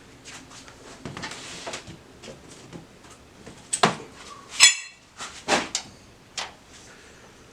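Small objects being handled and rummaged through while lacing cord is fetched: light rustling and clicks, then a few sharp knocks and clatters about halfway through, one with a brief high metallic ring.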